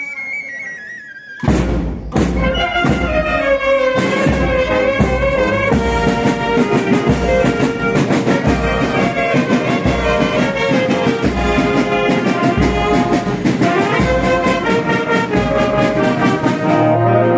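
Municipal band playing a loud piece led by brass, trumpets and trombones, over a steady percussion beat. A quieter held note dies away over the first second and a half, then the full band comes in with a loud accented entry.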